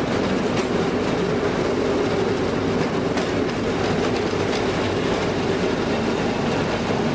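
Railroad motorcar (track speeder) running along the rails: a steady engine drone with occasional clicks of the wheels over rail joints.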